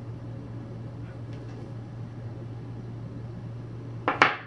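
Steady low hum of room background noise, with one short loud burst about four seconds in.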